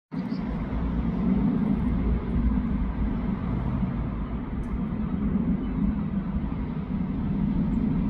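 Steady low background rumble, even and unbroken, with no distinct events.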